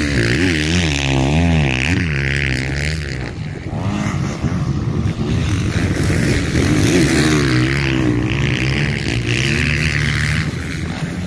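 Motocross bike engines revving hard, their pitch rising and falling over and over as the bikes race around the track.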